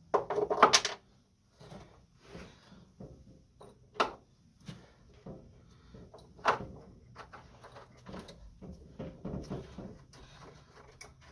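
Clunks and knocks as the head of a pinball machine is handled and fitted onto its cabinet. A cluster of loud knocks comes first, then single sharp knocks about four and six and a half seconds in, with quieter scraping and rustling between.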